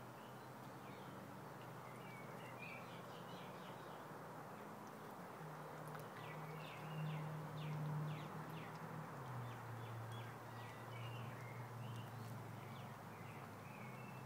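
Outdoor ambience of birds chirping, with short calls and quick falling notes scattered throughout, over a low steady hum that drops in pitch twice.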